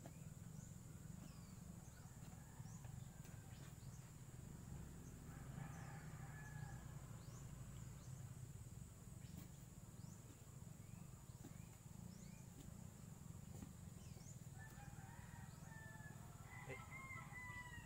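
Faint rooster crowing, once around six seconds in and again near the end, over a low steady rumble, with small birds chirping.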